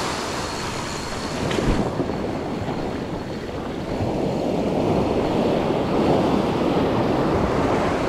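Surf washing in and foaming around the shallows, with wind on the microphone; the wash grows louder about four seconds in.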